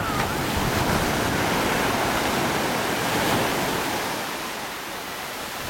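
Ocean surf at the shore: a steady rush of wave wash that eases off over the last couple of seconds.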